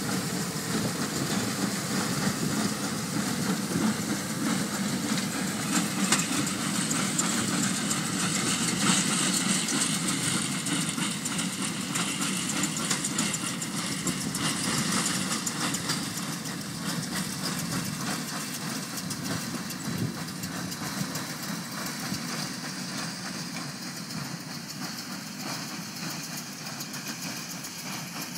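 Aebi TP450 transporter's diesel engine running under load as it hauls a loader wagon across a steep slope, with a steady clatter from the machinery. It grows fainter in the second half as the machine moves away.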